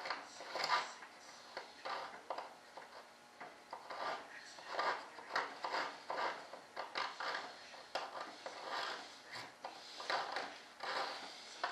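Irregular rubbing and scraping strokes, with a few sharp clicks, from hand work on a freshly molded fiberglass rudder part.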